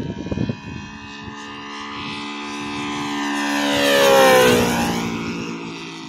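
Radio-controlled Seagull Bearcat model plane with a Saito 60 R3 three-cylinder radial engine flying a pass: the engine grows louder to a peak about four seconds in, and its pitch drops as it goes by, then fades.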